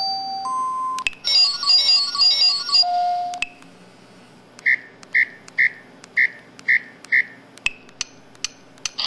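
Samsung SPH-E2000 mobile phone's built-in sound effects played one after another through its speaker: simple electronic beep tones stepping in pitch, a short chiming melody, then six short evenly spaced beeps at about two a second, with small clicks between them.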